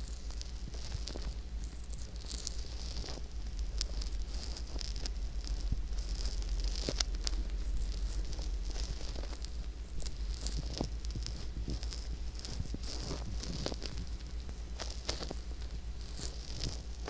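Fingertips rubbing and pressing on the silicone ear of a binaural microphone, heard right at the ear canal as a close, scratchy rustling with many small crackles and clicks.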